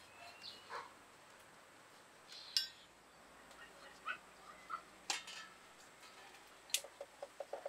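Quiet background with a few faint, scattered clicks and light clinks, and some short high chirps.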